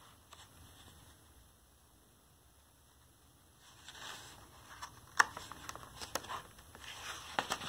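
Faint rustling and sharp little clicks of paper and hands handling a picture book as its page is turned, beginning about three and a half seconds in after a near-quiet start.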